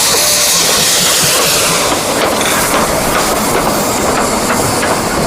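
Water rushing and splashing as a muddy plastic toy train is rinsed, a steady loud hiss with small knocks and clicks from about two seconds in.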